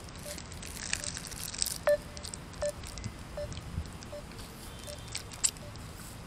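Mobile phone call tone: short electronic beeps about three-quarters of a second apart, a couple of them much louder, as the call to his mother fails to connect for lack of signal. Faint sipping through a straw in between.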